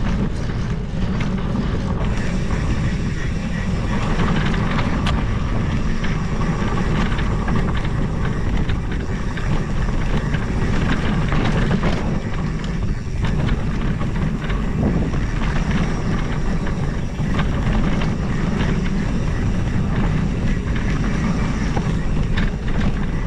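Mountain bike riding down a dirt singletrack: steady wind buffeting the camera microphone over the roar of knobby tyres on dirt, with small clatters from the bike over bumps.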